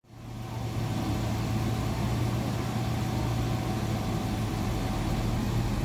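Lorry's diesel engine running steadily at a constant low hum, driving the hydraulics of its truck-mounted crane as the crane holds a tree. The sound fades in over the first half second.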